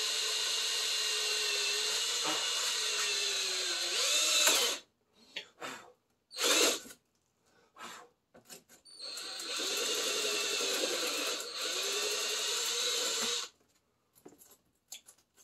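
Cordless drill spinning a step bit through a wooden door-card panel: a steady motor whine for about four and a half seconds, a few short trigger blips, then a second run of about four seconds before it stops.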